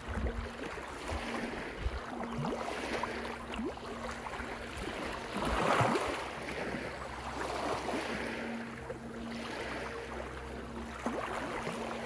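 Small ocean waves washing in over a rocky, barnacle-covered shore and trickling back through the stones. The loudest wash comes about six seconds in.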